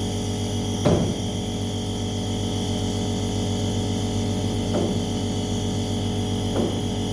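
A steady mechanical hum, with three short falling whimpers: one about a second in, one near the middle and one near the end.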